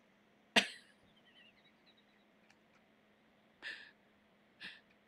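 Short breathy sounds from a person: one sharp huff about half a second in, then two softer breaths near the end, over a faint steady hum.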